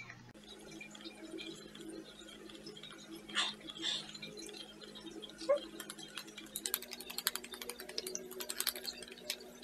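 Soft, wet handling sounds of a damp sheet mask being peeled off the face, then many small quick clicks from about two-thirds of the way in as fingertips pat the leftover essence into the skin, over a faint steady hum.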